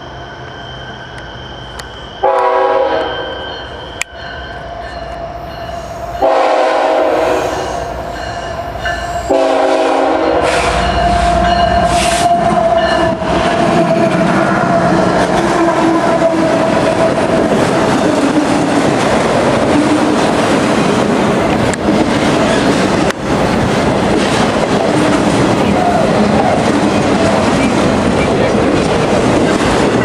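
A CSX GE ET44AH locomotive's air horn sounds three blasts, the second the longest. The train then passes close by: the diesel locomotives and a long string of autorack cars run past with steady wheel clatter on the rails.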